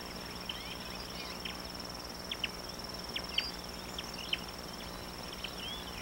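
Steady, high-pitched insect trill, with a scattering of brief, higher chirps over it.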